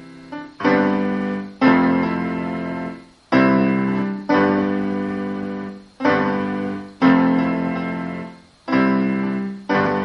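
Piano playing a slow progression of block chords, about eight in a row. Each is struck sharply, fades, and is cut off just before the next one.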